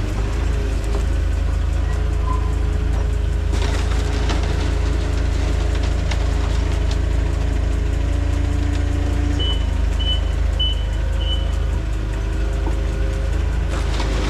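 Forklift at work with a steady low engine rumble, and four short high beeps from its backup alarm a little past halfway.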